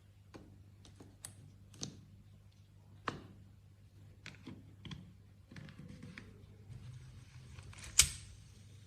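Small clicks and knocks of a baitcasting reel being handled and inspected, over a faint steady hum, with one sharp loud click about eight seconds in.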